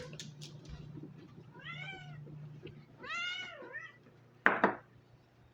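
Domestic cat meowing twice, drawn-out meows that rise and fall in pitch, asking to be fed. A short loud clatter comes near the end.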